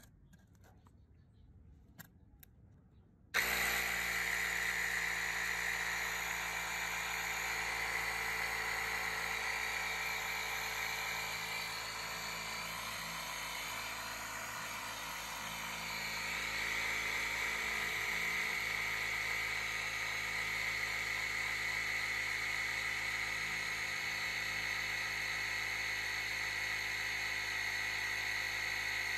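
Homemade small air compressor switched on about three seconds in, its motor and pump then running steadily with a strong high tone while pumping air into a tyre through its hose. It dips slightly in loudness midway, then steadies again.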